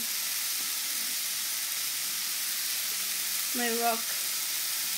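Shredded cabbage, carrot, pineapple and chicken sizzling in a hot stone-coated frying pan, a steady even hiss.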